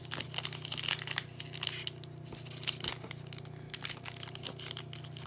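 Crinkly foil trading-card pack being pulled and torn at by hand, an irregular run of crackles as the pack resists opening. A steady low hum runs underneath.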